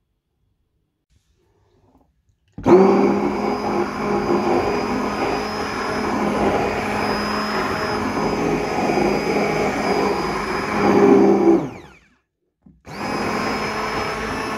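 Hand-held stick blender running in a bowl of thin semolina batter, a steady motor whir. It switches on a few seconds in, winds down with a falling pitch and stops, then starts again less than a second later.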